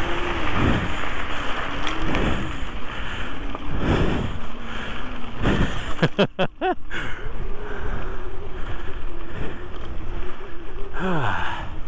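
Wind rushing over the handlebar action-camera microphone and tyres rolling on gravel as an e-bike rides along, with a steady motor whine that wavers in pitch. The sound briefly drops out and warbles about halfway through.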